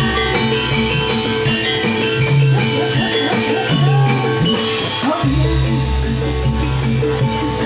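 Javanese gamelan music for a jathilan dance, with many ringing pitched notes played steadily and a deep sustained note that drops out for a few seconds in the middle.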